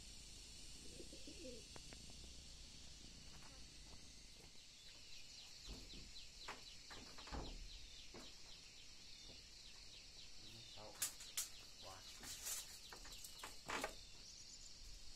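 Faint outdoor bird calls over a steady high hiss. Several low thumps come about halfway through, and a cluster of sharp knocks in the last third are the loudest sounds.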